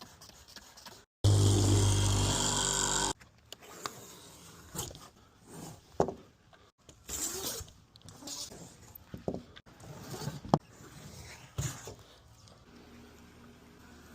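Auto-glass work sounds from a windshield replacement: a loud steady motor hum for about two seconds near the start, then a run of quieter clicks, taps and short scrapes.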